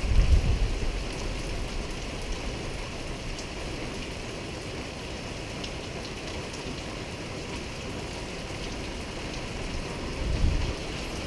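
A steady hiss of outdoor noise that sounds like rain, with a few faint clicks, and low rumbles at the very start and again about ten seconds in.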